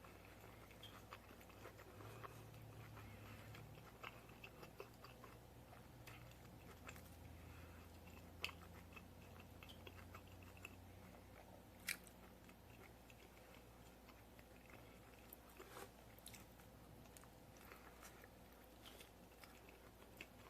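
Quiet, close-miked chewing and biting of crunchy hard-shell tacos, with scattered crisp crunches of the shell and two sharper cracks around the middle.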